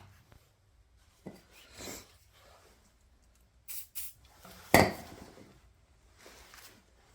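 Scattered metal clinks and knocks of tools and parts being handled, with one sharp metal clank a little under five seconds in.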